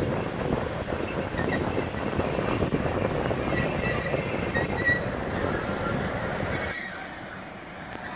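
ET42 twin-section electric locomotive moving slowly, its wheels running over the rails with thin, intermittent wheel squeals. The sound drops off sharply a little before the end.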